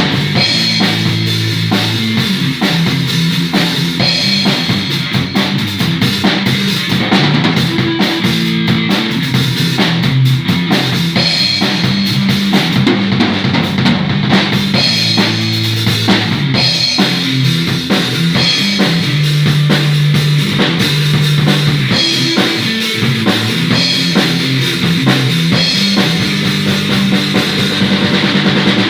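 A drum kit played live with bass drum and snare, under held low notes from another instrument that step from pitch to pitch: two players jamming.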